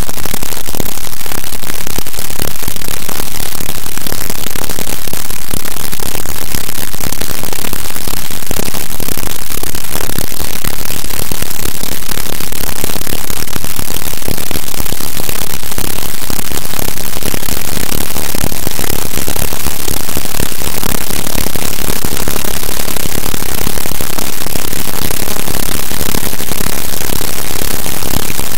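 Harsh noise music: a loud, unbroken wall of static-like noise spread evenly from low to high pitches, with no clear notes or beat standing out.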